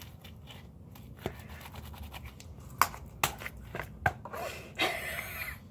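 Hand scrubbing and rubbing, with several sharp clicks and a longer rustling scrape near the end.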